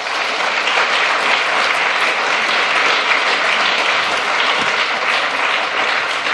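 Audience applauding steadily after a lecture, many hands clapping together.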